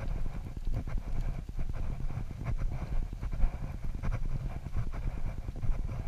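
Footsteps climbing stone steps close to a body-worn camera: a steady rhythm of steps over a dense low rumble and knocking from the camera's movement.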